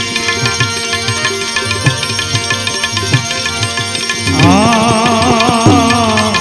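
Music from a Gujarati devotional bhajan played between sung lines: repeated hand-drum strokes under steady sustained notes. A wavering melody line comes in about four seconds in.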